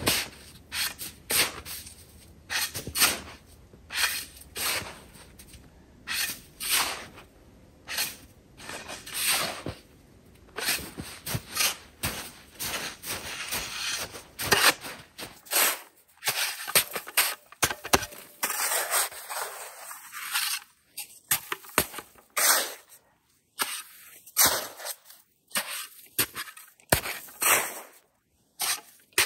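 Compact snow shovel digging into and scraping through packed snow: repeated scooping strokes, roughly one a second, becoming more scattered with short pauses in the second half.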